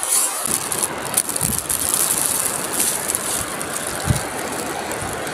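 Shallow seawater on a tidal flat being stirred and splashed by a hand reaching in to pick up shells, over a steady hiss, with a few small clicks and a couple of soft low bumps.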